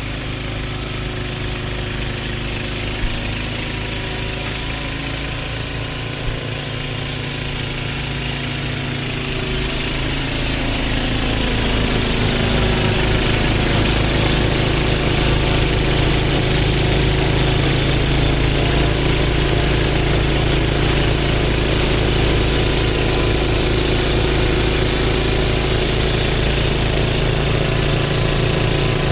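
Small gasoline snowblower engine running steadily, growing louder about ten seconds in and then holding steady.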